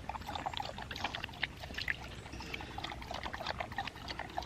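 Australian Shepherd lapping water, a quick irregular run of short wet slurps, several a second.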